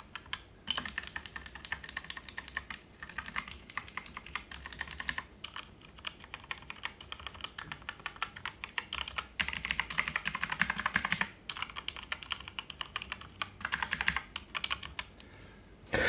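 Fast typing on a Gamen Titan Elite mechanical keyboard with linear red switches: a rapid, quiet patter of keystrokes in bursts with short pauses, without the click of blue switches.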